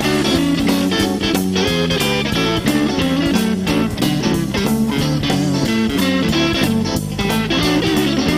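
Blues-rock band playing an instrumental break: a Telecaster-style electric guitar leads over electric bass and percussion, with a steady beat.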